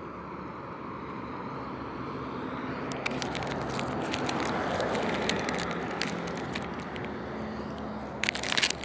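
Road traffic noise: a vehicle passing swells and fades around the middle. Scattered sharp crackles and clicks come through the middle, and a short burst of crackling comes near the end.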